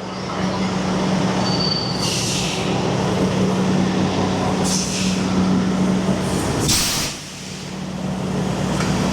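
Truck engine running steadily, with three short hisses of air, typical of a semi truck's air brakes; the last hiss, near the end, is the loudest.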